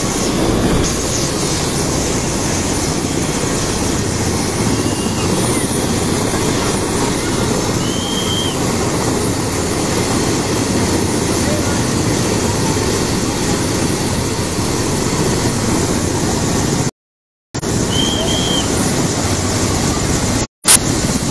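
Light helicopter running on the ground with its main rotor turning slowly, a steady loud rush of engine and rotor noise, mixed with the chatter of onlookers. The sound cuts out briefly twice near the end.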